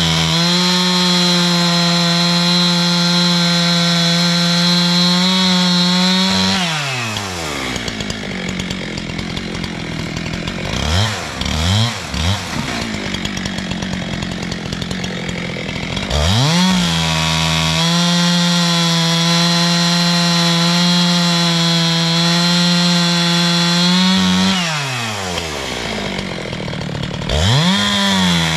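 A two-stroke chainsaw runs at full throttle, cutting wood. It drops to idle about six seconds in and is blipped twice. It then runs back up to full throttle for about eight seconds, falls to idle again, and revs up once more near the end.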